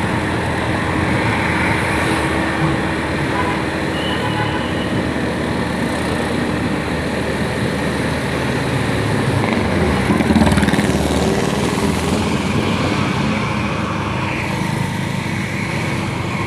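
A motor vehicle's engine running with steady road noise while on the move, swelling briefly about ten seconds in.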